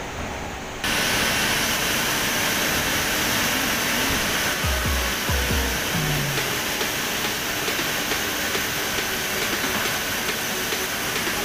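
Steady industrial noise at a palm oil mill's fruit tippler: a loud, even hiss of steam and running machinery with a faint steady whine. It cuts in suddenly about a second in, over a quieter room hum.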